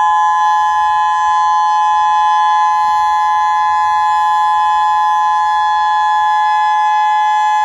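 Tsunami warning siren sounding its monthly test: one loud, steady tone of two close pitches held without rising or falling.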